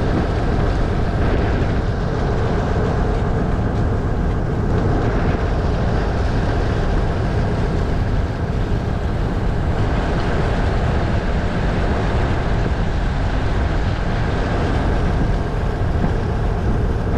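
Steady rumble of the passenger ship Sabuk Nusantara 71 under way, its engine drone mixed with wind and water noise on deck, unchanging throughout.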